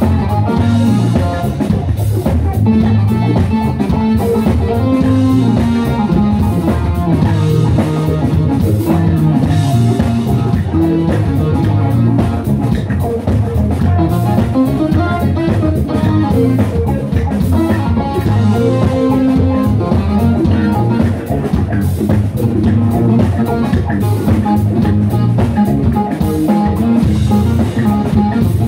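Live band playing through a PA: electric guitar, bass guitar and keyboards over a drum kit, with a steady beat.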